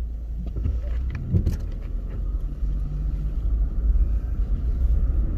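Car cabin noise while driving: a steady low rumble of engine and road, with a few light clicks about a second and a half in.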